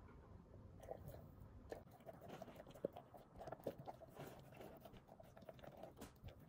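Great Pyrenees puppy eating dry kibble from a stainless steel bowl: faint, irregular crunching and chewing with many small clicks.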